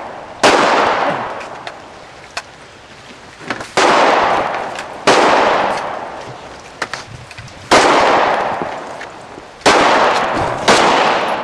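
Six loud gunshots fired at uneven intervals, each followed by a long fading echo, with a couple of faint clicks between the first shots.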